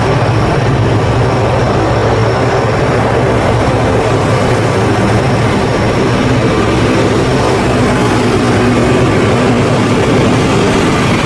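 Lockheed C-130 Hercules' four turboprop engines and propellers running loud and steady, with a constant low drone of several steady tones under a broad rush of noise.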